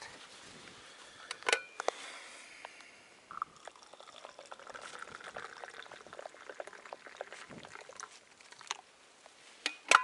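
Liquid poured in a steady stream from a stainless-steel thermos into a steel cup for several seconds. A sharp click comes about a second and a half in, and more sharp clicks near the end.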